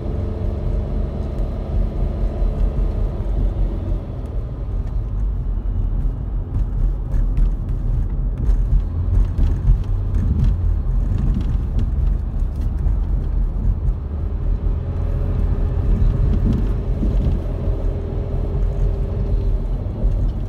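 Car driving on a paved mountain road, heard from inside the cabin: a steady low rumble of road and engine noise, with a faint hum near the start and again in the last few seconds.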